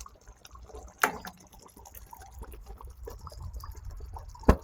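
Pot of thick venison gravy bubbling, with two sharp knocks: one about a second in and a louder one near the end.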